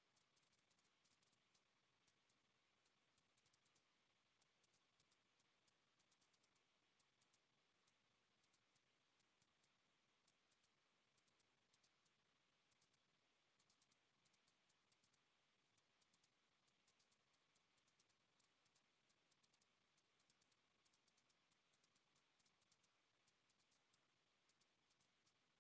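Near silence: a faint hiss with scattered clusters of quick, faint clicks.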